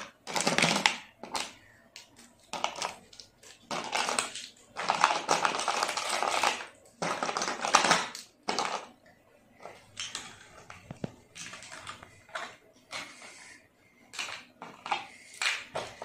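Small plastic toy kitchen pieces (cups, cutlery, utensils) clattering and rattling against each other and a plastic case as they are handled, in irregular bursts.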